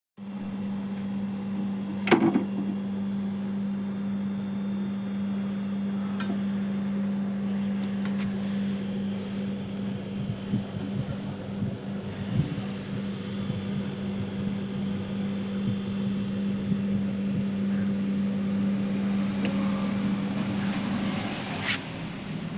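Refrigerator compressor running with a steady low hum while the refrigerant gas is being charged, with a few sharp clicks and taps now and then.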